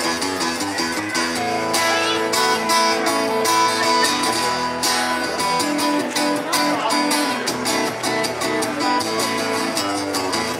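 Instrumental break in a live country song, led by guitar: strummed and picked notes over a steady beat, with no singing.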